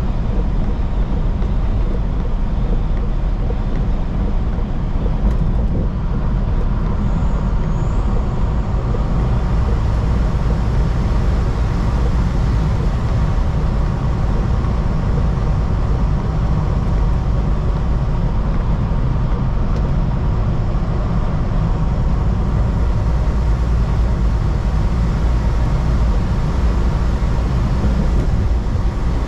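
Steady rumble of a semi truck's engine and road noise heard inside the cab while cruising at highway speed.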